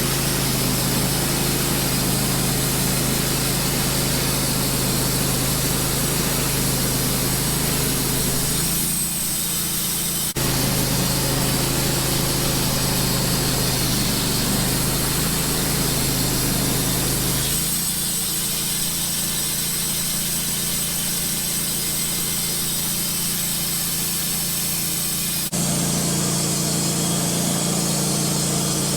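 Wood-Mizer LT15 band sawmill running, its band blade cutting through a black cherry log with a steady drone; the sound shifts abruptly several times.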